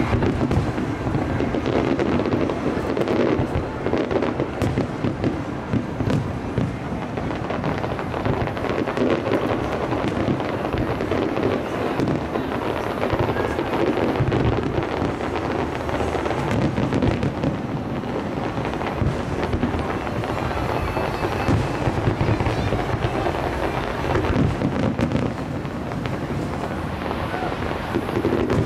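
Fireworks display in full swing: a dense, unbroken barrage of shell bursts and crackle.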